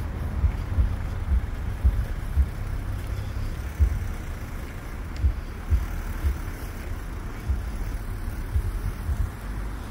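Road traffic in a congested queue, cars moving slowly past, with irregular low thumps of wind buffeting the microphone.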